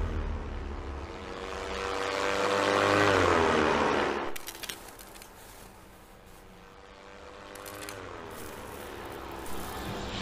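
Propeller airplane flying over, its engine drone dropping in pitch as it passes. It swells to a peak about three seconds in and cuts off suddenly just after four seconds. The drone builds again, falling in pitch once more near eight seconds.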